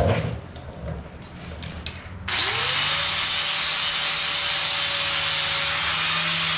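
Electric angle grinder switched on a couple of seconds in: its motor spins up with a short rising whine, then it runs steadily with a harsh, loud grinding noise on steel. Before that, a few light handling knocks.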